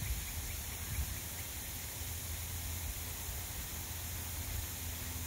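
Steady background hiss with a low rumble underneath and no distinct event.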